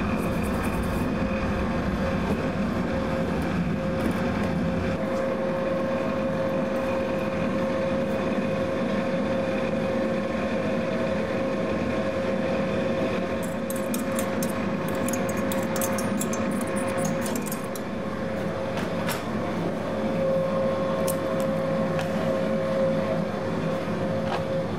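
Pasta extruder running, its motor making a steady hum with one constant tone as it presses ruffled pasta through a bronze die. A run of faint clicks comes about two-thirds of the way through.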